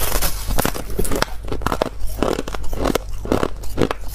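Crisp crunching of a block of compacted shaved ice being bitten and chewed, a quick run of several crunches a second.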